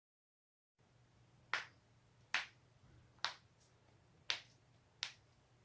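Joints cracking: five sharp pops, roughly a second apart, over a faint steady low hum.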